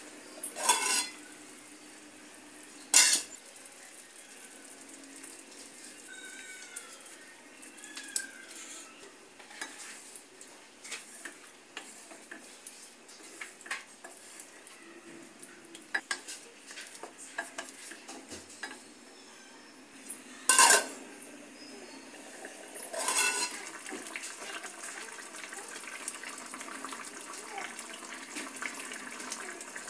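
Cookware clatter from a metal kadai and its lid: a few sharp metal clanks, two near the start and two more about two-thirds through, with lighter taps and scrapes of a wooden spatula stirring the curry between them.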